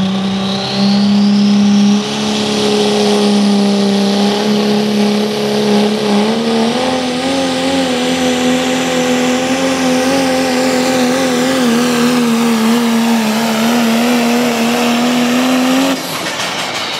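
Dodge Ram pro stock diesel pulling truck's Cummins engine running at full power under the load of the pulling sled, a loud steady drone with a high whistle rising over the first two seconds. The engine note steps up about six seconds in and holds, then drops off sharply about sixteen seconds in as the pull ends.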